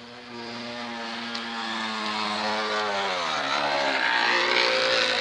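Plastic bottle fixed at the rear of a bicycle, buzzing against the turning rear wheel like a motorbike engine as the bike approaches. The buzz grows louder throughout, and its pitch drops about three seconds in.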